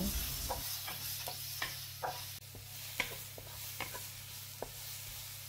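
Ginger slices and herb paste sizzling gently in oil in a nonstick pan, with irregular taps and scrapes of a wooden spatula stirring them, about two sharp ticks a second.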